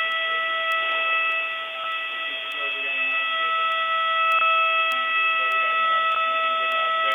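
A steady, unwavering alarm tone with overtones, heard through a telephone line: a test tone played down a phone call.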